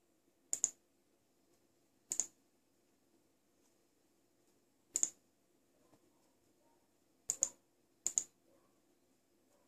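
Five computer mouse-button clicks, each heard as a quick pair of clicks, spaced a second or more apart over a faint steady hum.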